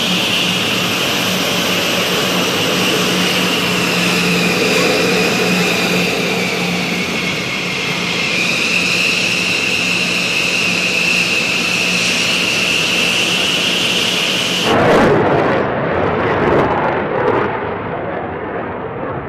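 F-15E Strike Eagle twin jet engines running at low taxi power: a steady high whine over a low hum and rushing noise. About three-quarters of the way through it cuts to the duller rushing noise of a jet flying at a distance, fading slowly.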